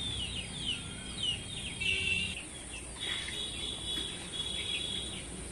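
Small birds chirping over and over with short, high, falling calls. From about three seconds in, a steady high buzz joins them for about two seconds.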